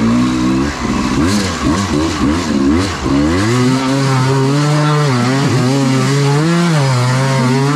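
Dirt bike engine blipping the throttle in short, uneven revs. From about three seconds in it is held at steady high revs, with the pitch wavering slightly.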